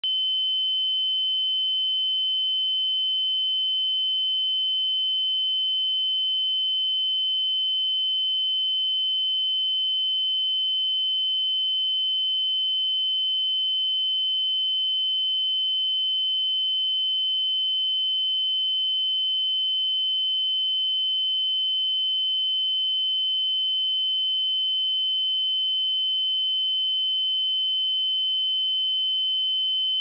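A pure 3058 Hz sine-wave test tone: a single steady high-pitched beep held at constant pitch and level, used to check speakers or headphones.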